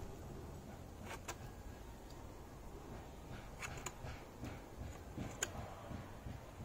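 Knife blade shaving a green wood stick flat: a few short scraping cuts and clicks, in small groups about a second in, around four seconds in and near five and a half seconds, over a low rumble.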